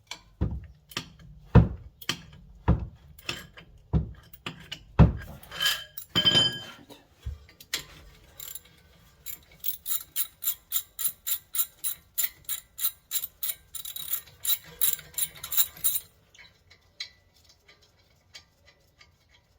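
Socket ratchet clicking as the lower brake caliper bolt is backed out: sharp clicks a little under two a second at first, then, after a short pause, a faster even run of lighter clicks, about four a second, that stops suddenly and trails off into a few faint ticks.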